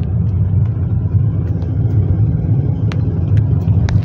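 Steady low road and engine rumble inside a moving car's cabin, with a few light clicks about three seconds in.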